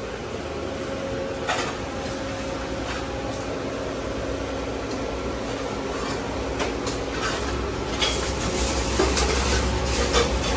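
Restaurant kitchen sounds: scattered clinks of dishes and metal utensils over a steady hum. The clinks come more often in the second half.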